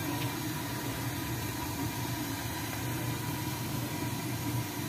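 A steady low mechanical hum, like an engine or motor running at idle, over a constant background noise.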